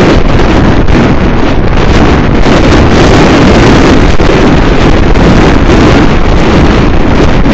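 Loud, steady wind buffeting on the microphone of a camera on a moving car.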